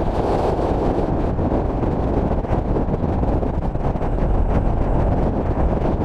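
Steady wind rush buffeting the microphone at downhill longboarding speed, mixed with the rumble of skateboard wheels rolling over the asphalt.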